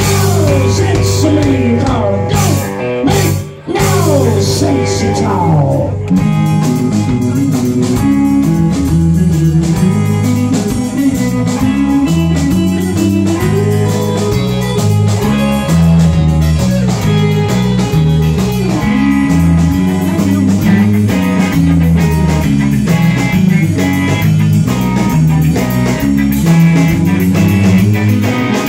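Live band playing an instrumental passage on electric guitars, bass and drum kit. For the first few seconds guitar lines slide down in pitch with two short breaks, then about six seconds in the full band settles into a steady, driving groove.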